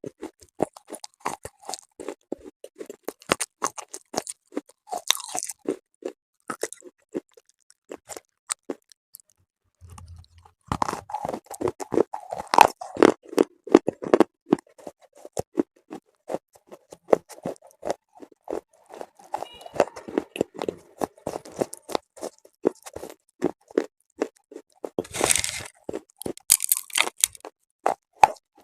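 Close-miked crunching and chewing of hard, chalky pieces, rapid and crackly, with a pause of about two seconds partway through and a loud bite near the end.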